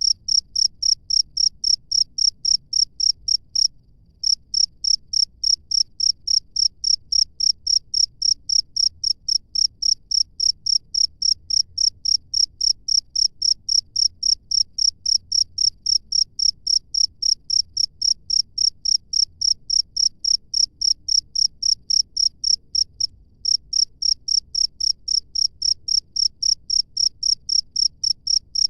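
A field cricket chirping steadily, about three loud, high-pitched chirps a second, pausing briefly twice.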